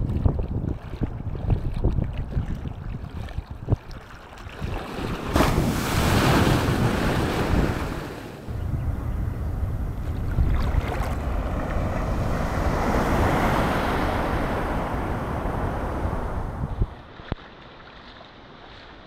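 Shallow sea surf washing around the microphone, with wind buffeting it in gusts at first. Two long rushes of water, the second lasting several seconds, then the sound drops off sharply near the end.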